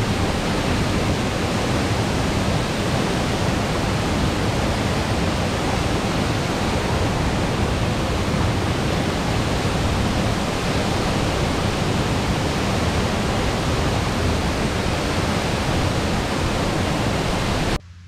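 Steady rushing roar of a waterfall pouring into its plunge pool, the river running high after rain. It cuts off suddenly near the end.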